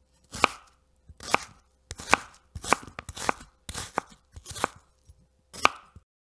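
Logo-sting sound effect: a run of about eight sharp, chopping-like knocks, each with a short ringing tone, coming roughly one every 0.7 s.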